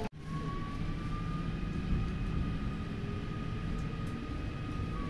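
Electric commuter train running, heard from inside a passenger car: a steady low rumble with an electric motor whine that rises slightly in pitch over the first couple of seconds, then holds.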